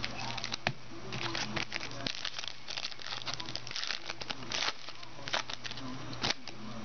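Foil wrapper of a trading-card pack crinkling and tearing as it is ripped open and crumpled by hand: a dense run of sharp crackles, thickest in the middle seconds.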